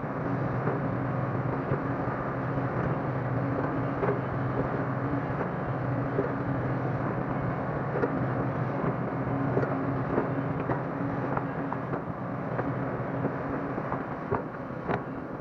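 Hydraulic excavator's diesel engine running steadily as the machine swings, dumps and digs soil, with scattered light knocks throughout.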